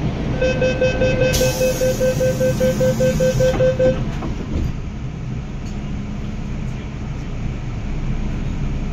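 MTR M-Train door-closing warning: a rapid beeping of about four beeps a second for roughly three and a half seconds, with a loud hiss partway through as the sliding doors shut. After the beeping stops, the steady low rumble of the train continues.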